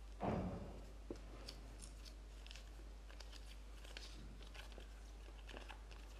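Small plastic toy packet and folded paper leaflet being handled and unfolded: faint crinkling and scattered paper crackles, with a dull thump just after the start.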